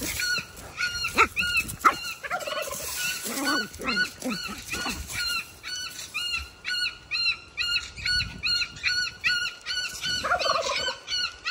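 Farmyard fowl calling over and over: a run of short, arching squawks, about three a second, getting denser after the middle, with a few lower calls mixed in.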